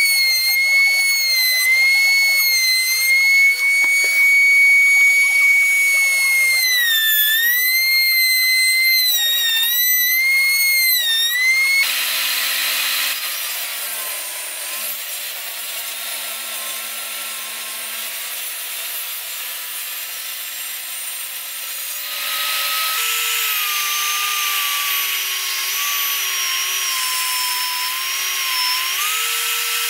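Power tools in turn. First a router's high whine, whose pitch sags several times as wood is fed into the bit. About twelve seconds in, a table saw cuts; a few seconds before the end, a sander grinds wood, its motor pitch slowly sagging under the load.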